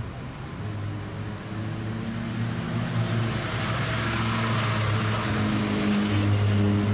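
Street traffic: a motor vehicle's engine hum and tyre noise growing louder as it approaches, over steady background traffic.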